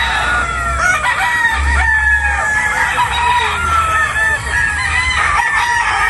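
Many gamecocks crowing at once, their calls overlapping and following one another without a break.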